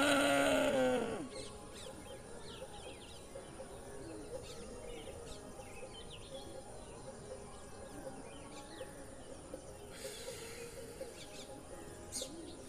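Birds chirping in the background at a low level, short scattered calls. In the first second a loud held tone with several overtones slides down in pitch and fades out, and a faint hiss comes in near the end.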